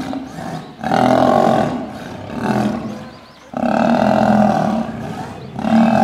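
Lions snarling in a fight, a male lion attacked by a group of lionesses. About four loud, drawn-out bouts, with a quieter gap near the middle.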